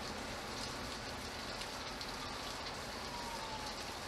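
Steady rain falling: an even hiss of rain with scattered individual drop splashes.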